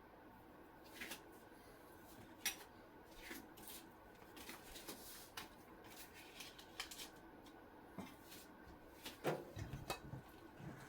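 Light kitchen handling sounds: scattered taps and clinks of utensils and dishes being set down and moved, with a quick run of louder knocks near the end.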